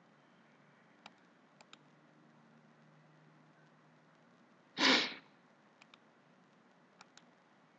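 Low hiss with a few faint clicks of a computer mouse, and about five seconds in one short, loud burst of breath noise like a sharp sniff.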